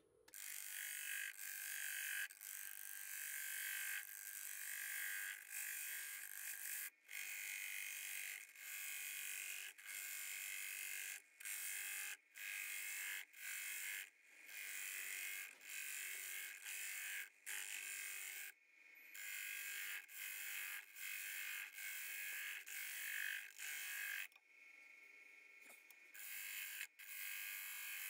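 A flat scraper cutting the inside of a macrocarpa pine bowl spinning on a wood lathe: a steady, noisy shearing of wood in passes, broken by brief gaps about once a second, over the lathe's faint steady hum. Near the end it drops away for about two seconds while the tool is off the wood.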